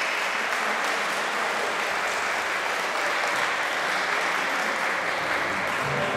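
Steady applause, many hands clapping at once.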